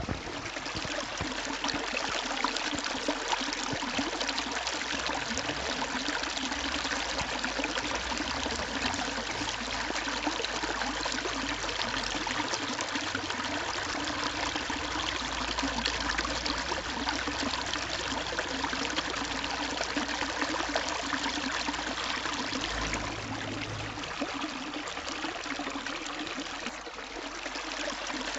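Fountain water falling in a steady stream from a spout and splashing into the pool of a stone basin.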